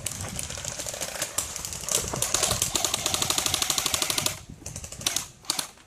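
Airsoft electric gun firing full-auto: fast, even clicking bursts, the longest running for about two and a half seconds from about two seconds in.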